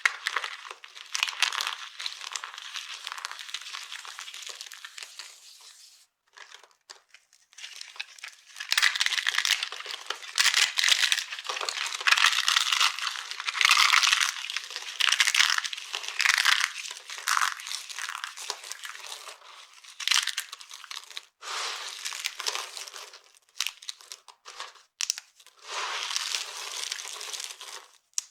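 Dry soap shapes being crushed, crunching and crackling as they crumble, in uneven bursts with a short pause about six seconds in.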